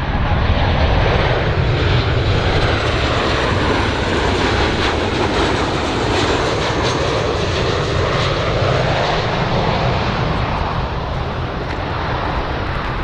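Boeing 737-800 business jet's CFM56 turbofan engines on landing approach: a steady, loud jet rush with a faint high whine above it.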